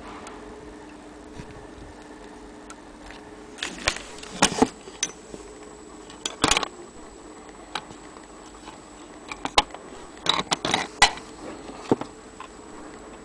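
Brass French mantle clock movement being handled and turned over: irregular clicks and knocks of metal parts and the bezel rim, in clusters a few seconds apart, loudest about ten to eleven seconds in.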